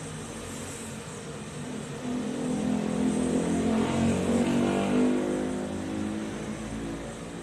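A motor vehicle passing by: its engine sound grows louder from about two seconds in, peaks mid-way and fades near the end.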